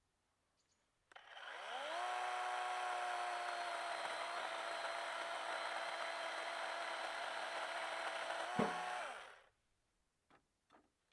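Chainsaw starting up, running steadily at speed for about seven seconds, then winding down to a stop. A sharp knock comes just before it stops.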